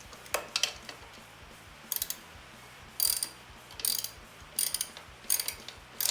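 Ratchet wrench clicking in short bursts, about seven strokes spaced a little under a second apart, as a battery hold-down bolt is tightened.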